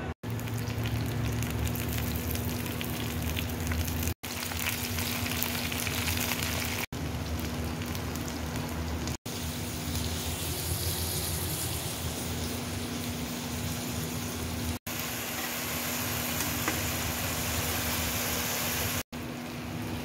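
Onions and then okra frying in hot oil in a karahi: a steady sizzle with a low hum underneath, broken by six brief silent dropouts.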